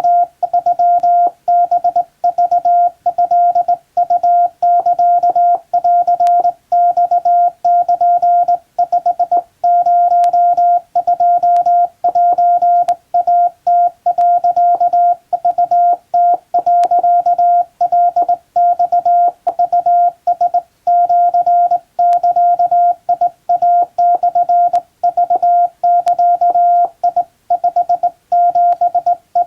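Hand-sent Morse code: a steady tone of about 700 Hz keyed on and off in dots and dashes from a Japan Radio Co. telegraph key, sending Japanese wabun telegram text at a steady pace.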